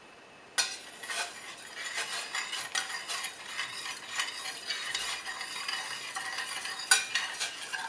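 A spoon stirring sugar into boiling water in a small saucepan, a quick run of scrapes and clinks against the pan with a hiss underneath. It starts abruptly about half a second in, with one sharper knock near the end.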